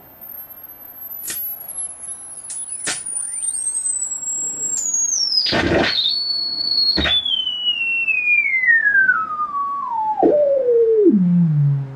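Sine test tone from a signal generator, played through a 1965 Admiral solid-state stereo amplifier, sweeping down from a piercing high whistle to a low hum and holding steady for about a second near the middle. This is a frequency sweep to check the amplifier's channel balance, since its right channel loses gain at high frequencies. A few sharp clicks and one loud pop come about halfway through.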